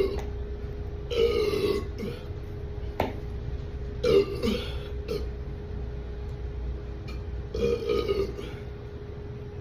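A man burping three times: about a second in, about four seconds in and near the end, each burp short and rough. A sharp click comes about three seconds in, and a steady hum runs underneath.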